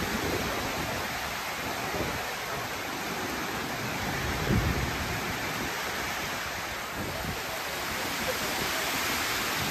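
Heavy rain pouring down steadily, an even rushing hiss, with a brief low thump about four and a half seconds in.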